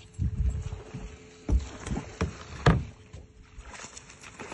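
Low rumbling gusts on a phone microphone aboard a small boat at sea, with a few sharp knocks in the middle.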